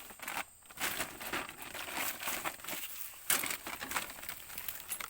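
Irregular rustling and crackling, with a sharper crackle about three seconds in.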